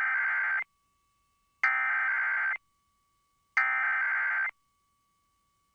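Emergency Alert System SAME header: three bursts of rapid, warbling digital data tones, each about a second long and a second apart. This is the coded header that opens an EAS broadcast, here a weekly test. A faint steady tone runs underneath.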